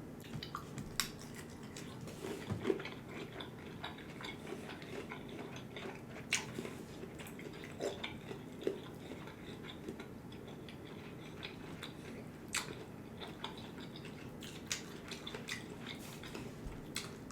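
Eating sounds of shell-on seafood: chewing with scattered short clicks and crunches of shell and utensils, over a faint steady hum.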